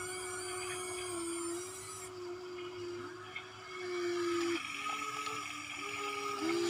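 Electric motors of a radio-controlled model excavator whining as the boom and arm move. One steady whine lasts about four and a half seconds, then shorter whines at two pitches start and stop, overlapping.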